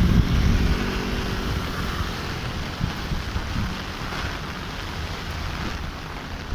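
Heavy rain falling steadily, with wind rumbling on the microphone. A vehicle engine is heard at the start and fades away within about a second.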